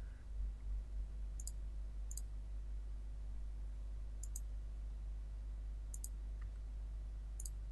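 Computer mouse button clicking about five times at uneven intervals, each click a quick press-and-release snap, as points for line segments are picked. A faint steady low hum lies underneath.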